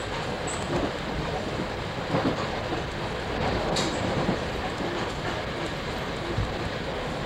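Commuter train running at speed, heard from inside the passenger car: a steady rumble of wheels on the rails, with a few short knocks along the way.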